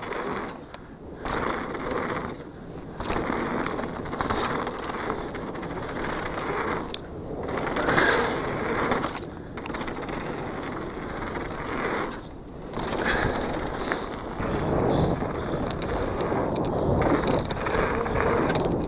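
Downhill mountain bike ridden fast over a dirt trail, recorded by the rider's action camera: tyres rolling over dirt and loose rock and the bike rattling over bumps, with wind rushing over the microphone. The noise swells and dips every second or two.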